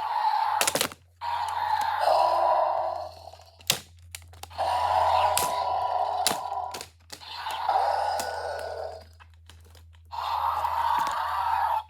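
Dinosaur roar noises during a toy battle: five growling bursts, each a second or two long, with sharp clicks and knocks between them.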